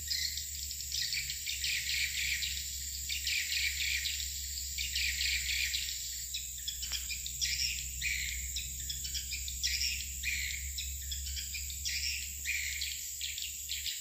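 Many swiftlets twittering in quick, overlapping chirps, with a steady high tone underneath.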